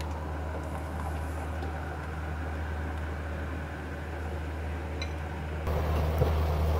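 Steady low machine hum with a faint hiss. It gets louder in a step near the end.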